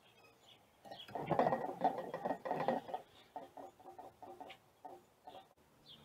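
A male red-winged blackbird arriving on a wooden platform feeder: a couple of seconds of fluttering and scuffling in the seed, then a run of quick ticks as it works through the seed, with a few faint high chirps.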